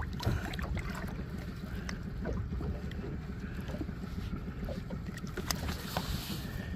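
Small splashes and water lapping at a boat's side as a large flathead is held in the water, over a steady low rumble of wind on the microphone.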